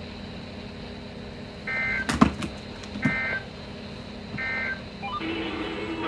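Emergency Alert System end-of-message tones: three short two-tone data bursts about 1.4 s apart, marking the end of the alert, over a steady low hum and hiss. A sharp click comes just after the first burst, and another broadcast starts up near the end.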